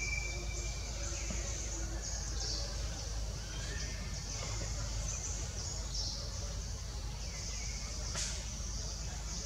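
Outdoor forest ambience: a chorus of insects buzzing high in pulsing stretches, with a short bird whistle at the start and a brief click near the end, over a steady low rumble.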